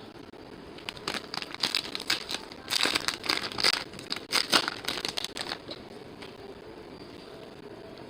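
Foil trading-card pack wrappers crinkling and tearing as they are opened by hand, a run of crackly rustles from about a second in until near six seconds in.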